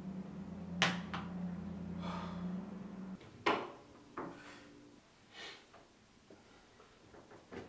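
A steady low hum that cuts off suddenly about three seconds in, with sharp knocks: two close together about a second in and two more about half a second apart around three and a half seconds, then fainter scattered noises.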